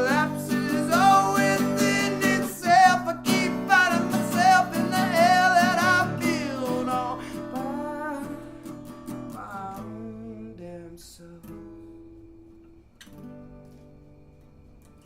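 Acoustic guitar strummed under a wordless, wavering sung melody. After about eight seconds the voice drops out and the guitar fades, with one last soft chord struck near the end and left to ring.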